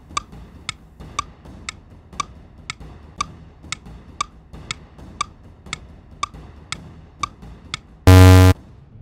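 Countdown clock sound effect ticking steadily about twice a second, ending with a loud buzzer about eight seconds in that signals time is up.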